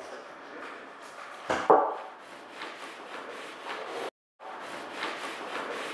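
Fingers and knuckles rubbing powdered pigment into a sheet of paper on a wooden table, a dry scratchy scrubbing with a few harder strokes, the strongest about a second and a half in. This is pigment being worked into paper to make a transfer sheet for carrying an icon drawing onto the board. The sound drops out briefly just after four seconds.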